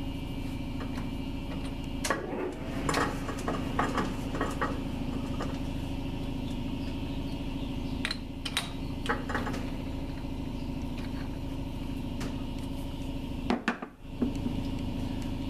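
Metal clinks and taps of steel tooling and parts being handled at a metal lathe, in scattered clusters, over a steady machine hum.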